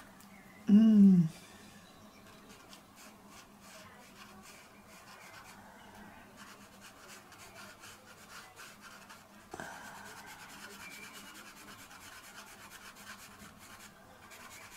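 Pencil strokes scratching and rubbing on sketchpad paper, faint and continuous. About a second in there is a short hum from a woman's voice, falling in pitch, which is the loudest sound. Near ten seconds there is a small click, after which the rubbing is a little louder.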